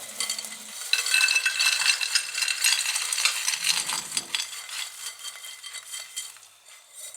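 Freshly candied walnuts clattering and scraping against a dish and a spoon as they are stirred and spread out: many quick hard clicks with a little ringing, loudest in the first few seconds, then thinning out near the end.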